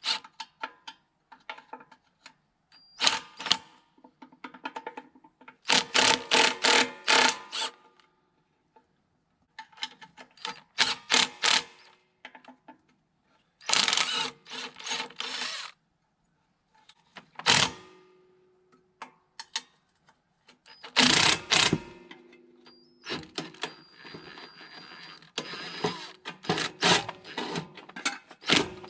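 Cordless impact wrench hammering in several short bursts of a second or two with pauses between, as bolts are run loose.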